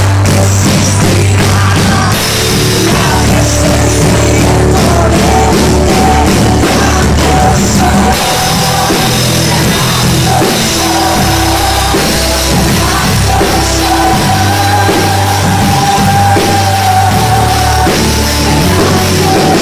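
A woman singing a worship song into a microphone over loud accompaniment with drums and heavy bass, played through the church's loudspeakers. She holds long notes that bend in pitch.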